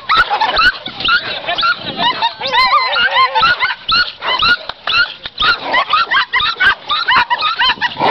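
Pit bull dogs yelping and whining in a rapid, nonstop string of short high-pitched cries.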